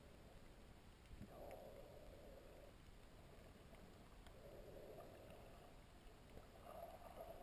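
Near silence: faint, muffled underwater noise picked up through a camera housing, swelling softly three times.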